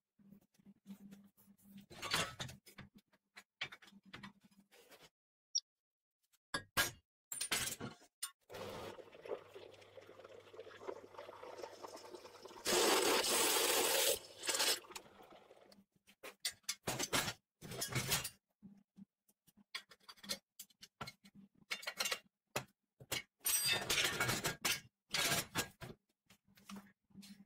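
Steel parts being handled on a steel workbench: scattered clinks and knocks of metal on metal, with a longer harsh noisy stretch midway that peaks loudest for about a second and a half.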